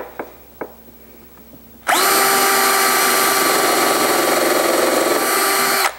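Cordless drill with a countersink pilot bit boring into a plywood roof panel. It runs at a steady speed for about four seconds, starting about two seconds in and cutting off just before the end, after a few light handling clicks.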